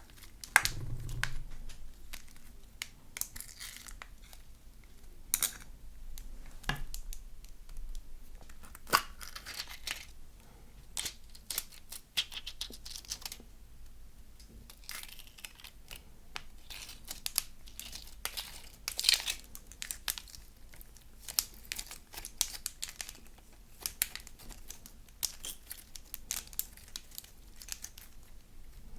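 Slime being kneaded and stretched by hand, giving a dense run of crackling, snapping and tearing sounds with many small pops.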